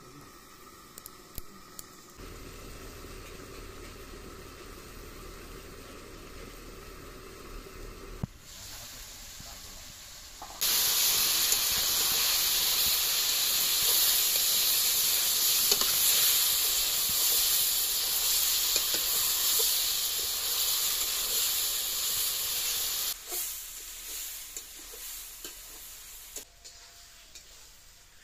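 Chicken and tomato curry sizzling and hissing in an iron kadai over a wood fire as it is stirred with a metal spatula. Low and quiet at first, the sizzle comes in suddenly and loudly about ten seconds in, runs for about twelve seconds, then drops back down a few seconds before the end.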